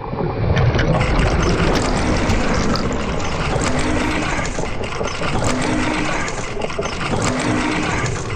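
Designed steampunk machine loop: a dense, steady engine-like mechanical running noise with a short two-note hoot that repeats about every second and a half to two seconds. It starts at once after a brief gap.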